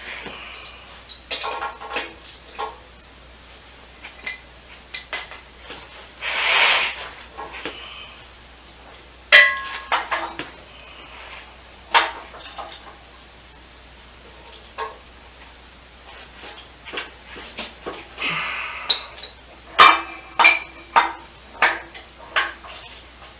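Hand tools and bolts clinking and tapping against the metal of an engine and automatic transmission during assembly: scattered sharp clinks and short ringing pings, with a brief noisy rasp about six seconds in.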